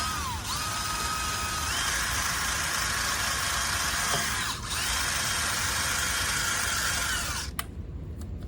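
Electric power tool motor whining at high speed, its pitch dipping and stepping up and down as the trigger is eased and squeezed. It cuts off about seven and a half seconds in, followed by a few sharp clicks.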